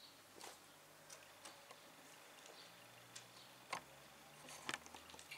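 Faint, irregular clicks and crunches of a guinea pig gnawing to wear down its teeth.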